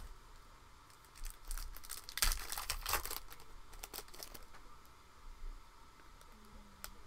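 Foil trading-card pack wrapper being torn open and crinkled by hand, a run of crackling that is loudest about two to three seconds in and then dies away to a few faint ticks.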